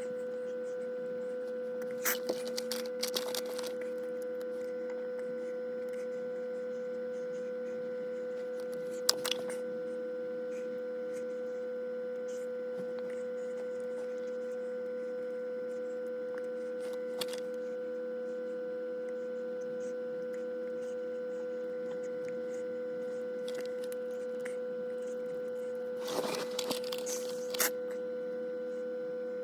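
A steady electrical-sounding hum throughout, broken by a few short bursts of rustling and clicks, as of something being handled, about two seconds in, near nine seconds, and again near the end.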